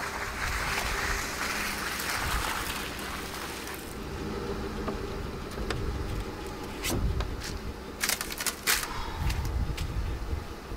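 Ford F-150 pickup reversing slowly over soft, muddy ground and coming to a stop, its engine running with a steady low rumble. A hiss fades out about four seconds in, then several sharp clicks and knocks come in the second half as the driver climbs out of the cab.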